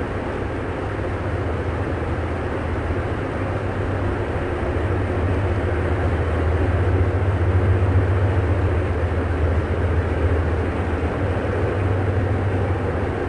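Train rumbling past with a steady deep drone, growing louder towards the middle and easing slightly near the end.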